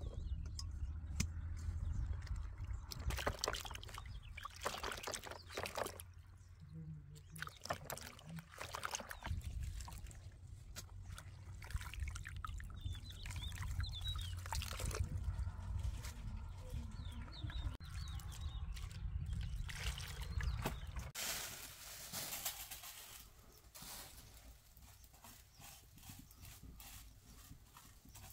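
Handling noises as unripe green grapes are tipped from a steel colander into a plastic basin, then water poured from a plastic jug, trickling over grape leaves being rinsed by hand in the basin, with wind rumbling on the microphone. About three quarters of the way through, the wind stops and only quieter small clicks remain.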